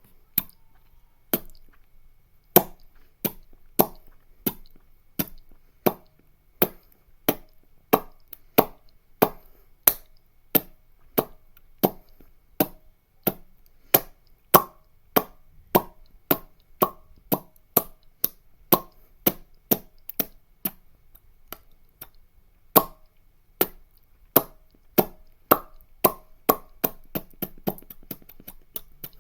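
A long series of sharp popping sounds, plausibly made with the mouth, about one or two a second at an uneven pace, coming faster near the end.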